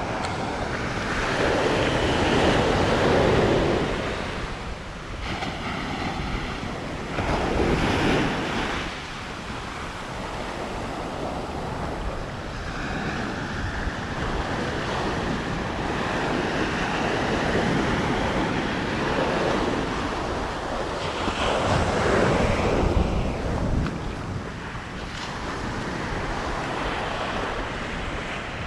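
Ocean surf breaking and washing on a sandy beach, surging louder a few times, with wind rumbling on the microphone.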